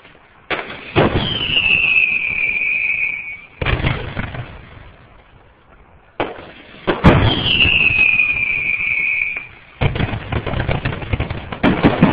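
Fireworks display: sharp launch and burst bangs, twice followed by a long whistle sliding down in pitch, then, about ten seconds in, a dense run of rapid pops and crackling.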